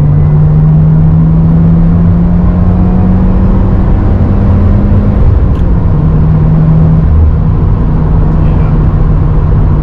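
Subaru WRX's turbocharged flat-four engine accelerating hard under heavy throttle, heard from inside the cabin: the engine note climbs steadily for about five seconds, drops at an upshift, then pulls on at a steadier pitch.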